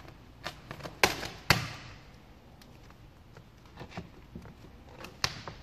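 Avery gloss black vinyl wrap film being pulled taut by hand and worked down with a squeegee over a car grille: three sharp snaps of the film, at about one second, a second and a half and near the end, with fainter crinkles between.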